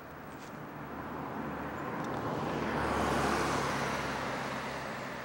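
A car driving past: its engine and tyre noise swells to a peak about three seconds in, then fades away.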